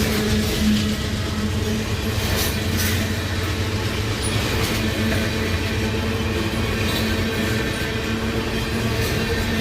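CN freight train rolling past: a steady low rumble with a few faint clicks.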